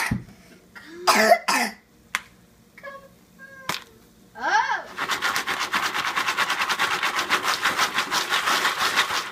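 Jiffy Pop foil popcorn pan being shaken quickly back and forth over a gas burner grate, a fast, even rattle that starts about five seconds in and keeps on. Before that come a few sharp single clicks and brief voice sounds.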